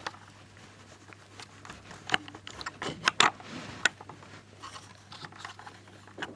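Small plastic clicks and knocks from Lego bricks as the compactor mechanism of a Lego rear-loader bin truck is worked by hand, with a few sharper clicks about two to four seconds in.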